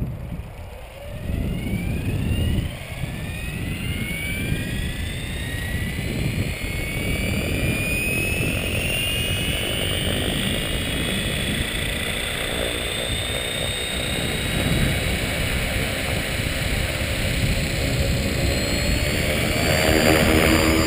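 Gaui X5 electric RC helicopter spooling up: the motor and gear whine rises steadily in pitch for about ten seconds, then holds level as the main rotor reaches speed, over a low rumbling noise.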